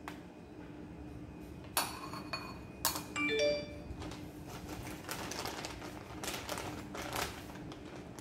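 A metal spoon clinks against a foil tray and a ceramic bowl, giving a few sharp ringing clinks about two and three seconds in. Then a plastic bag of shredded cheese crinkles as it is handled and opened.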